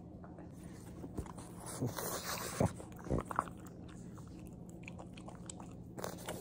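A pug chewing a hard dog treat, with a few short crunches about one to three and a half seconds in.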